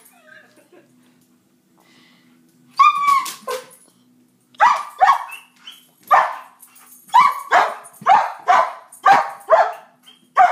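A dog barking in play while chasing a laser pointer dot: a single bark about three seconds in, then a quick run of barks, about two a second, from about halfway through. A faint steady low hum sits underneath.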